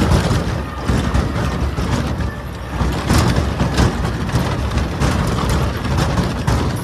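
Т-40АМ tractor's air-cooled four-cylinder diesel running hard as it drives through tall grass, with frequent clattering knocks from the hitch and the towed trailer over rough ground.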